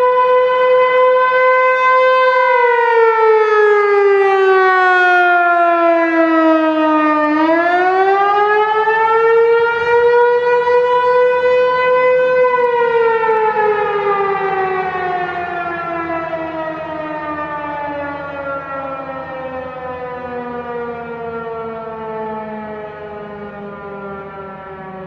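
ASC T-128 rotating outdoor warning siren sounding a steady tone. About two seconds in it wails down and back up once, then winds down slowly as it shuts off, its pitch and volume falling together.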